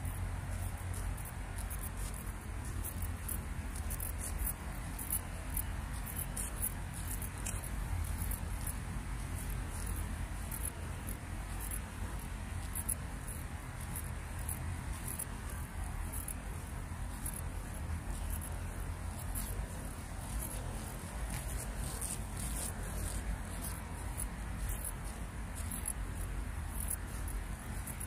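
Insects chirping in a fast, uneven, high-pitched trill, over a steady low rumble.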